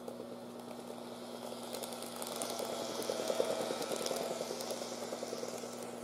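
N-gauge model train running along sectional track, its powered car giving a whirring, fast-rattling noise that grows louder to a peak about three and a half seconds in, then fades. The rattle is the abnormal noise from the powered car that the owner means to track down and fix.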